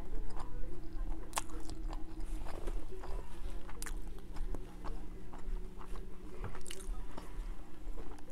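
Close-miked chewing through a clip-on chest microphone: a mouthful of food being chewed, with scattered short wet clicks and smacks from the mouth, over a steady low hum.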